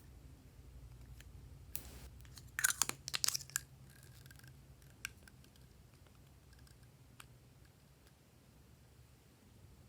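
Slime being handled and mixed, with a cluster of sticky crackling pops about two and a half seconds in and a few faint clicks after.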